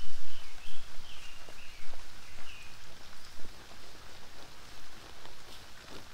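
Rustling and light handling noises of camping gear being packed up, loudest at the start. A bird repeats a short chirp about twice a second through the first half.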